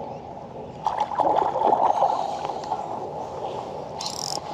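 Water splashing and gurgling as a hooked luderick (blackfish) struggles at the surface beside a kayak. It is loudest from about one to two seconds in, and a short high hiss comes near the end.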